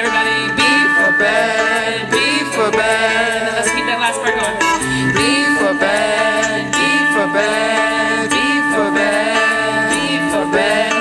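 Live acoustic folk music: a small plucked string instrument played along with a fiddle carrying a wavering melody over steady held notes.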